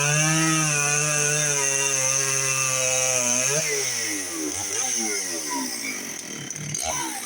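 Dolmar 6400 two-stroke professional chainsaw held at full throttle through a cut for about three and a half seconds, then released, its revs falling and rising several times before settling lower near the end.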